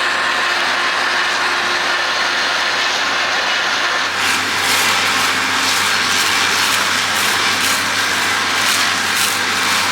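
Case IH AF10 combine running while harvesting wheat: a steady mechanical drone with a high whine over it, joined about four seconds in by a brighter, rougher hiss.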